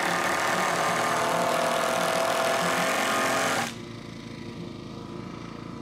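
Handheld power drill/driver running a screw into a wooden panel frame, running steadily and loud, then stopping abruptly about three and a half seconds in.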